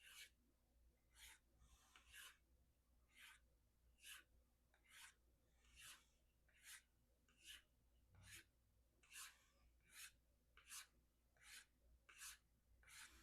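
Faint, steady hiss of a VG-10 knife blade stroked along a strop loaded with 3 micron diamond emulsion, about one pass a second, repeated over and over.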